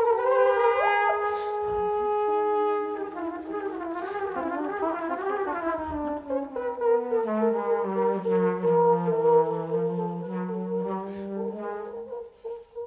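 Trumpet playing long held notes in free improvisation, with a second, lower tone that slides down partway through and holds beneath it.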